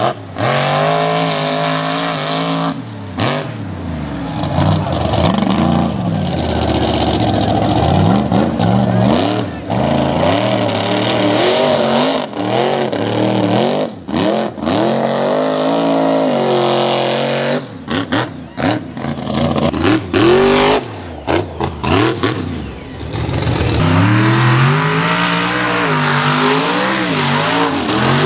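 Mega truck engines revving hard, the revs climbing and falling again and again under heavy throttle in the mud, with several abrupt cuts from one truck to the next.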